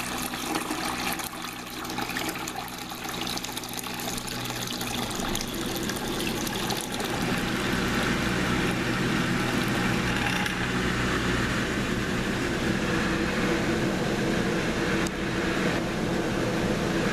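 Arksen 11-lb washing machine's drain pump running with water draining out of the tub, a weak pump slow to empty it in the owner's view. About seven seconds in it settles into a louder, steadier hum under a rush of water.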